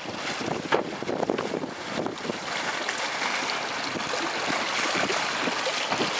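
Choppy seawater splashing and rushing around a small boat, with a few sharp splashes in the first second or so, then a steadier rushing hiss.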